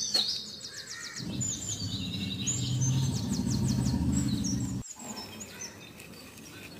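Small birds chirping and trilling, with quick repeated trill notes. A low rumbling noise runs underneath from about a second in and cuts off abruptly near five seconds.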